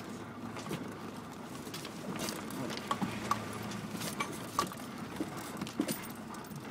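Land Rover Discovery Mk1 driving slowly over a rough off-road track, heard from inside the cab: a low, steady engine hum with irregular knocks and rattles as the vehicle jolts over the bumps.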